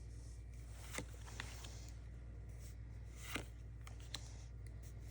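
Faint handling of Pokémon trading cards as they are flipped through: a few soft clicks and snaps over a steady low hum.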